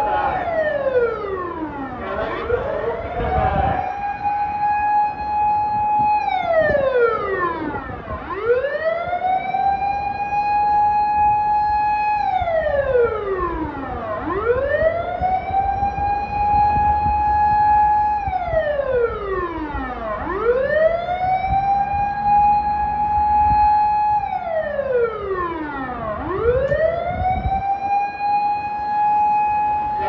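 A loud emergency-vehicle-style siren wailing on and on. Each cycle rises to a high held note for about three seconds, then sweeps down and climbs back up, repeating roughly every six seconds.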